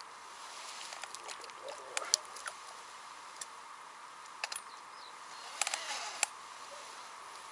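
Light clicks and taps of float-fishing tackle being handled by hand, in two small clusters about two seconds in and near six seconds, over a faint steady outdoor hiss.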